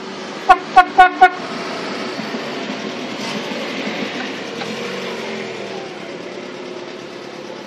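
A car horn giving four short, quick toots about half a second in, followed by steady engine and traffic noise.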